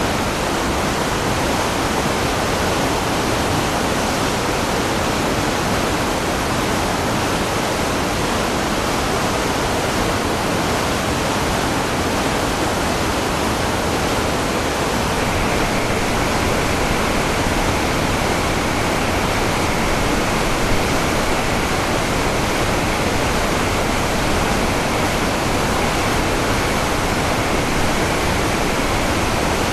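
Waterfall: a loud, steady rush of falling water that holds even throughout.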